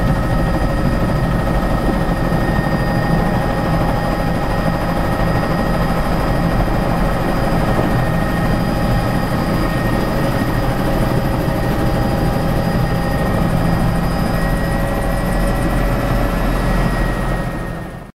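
Helicopter engine and rotor running steadily on the ground, heard from inside the cabin: a deep rumble under a steady high whine. The sound fades out near the end.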